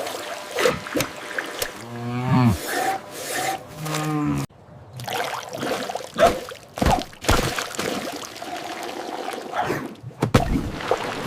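A cow mooing twice, the first call bending in pitch and the second held lower, among knocks and clatter. The sound cuts off suddenly about four and a half seconds in, and more knocks and clatter follow.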